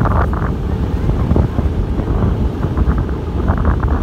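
Strong wind buffeting the phone's microphone on the open deck of a moving ferry: a heavy, gusty low rumble.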